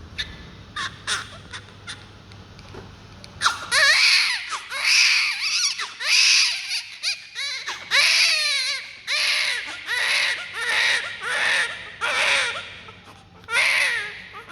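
Newborn baby crying: a few small fussy sounds, then from a few seconds in a run of loud, high-pitched cries, about one a second, each rising and falling in pitch.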